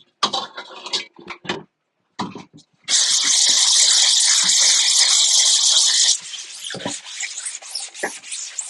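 Degreaser being sprayed onto a screen-printing screen: a steady, loud high hiss of spray lasting about three seconds, starting about three seconds in. Quick, rapid rubbing strokes come before and after it.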